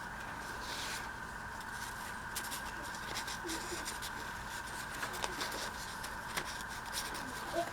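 Soft rustling, with light clicks and taps, from paper and card being handled and slipped into a handmade junk journal, over a faint steady hum.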